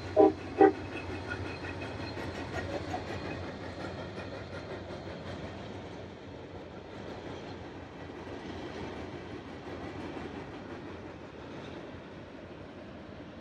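A freight train's cars rolling across a high railway bridge, a steady rumble with a clickety-clack rattle that slowly fades as the train draws away. Two short, loud calls sound in the first second.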